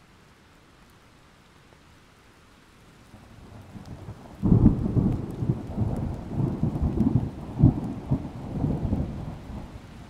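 Thunder over steady rain. A low rumble builds from about three seconds in and breaks sharply a little past four seconds. It rolls on in several peaks before fading near the end.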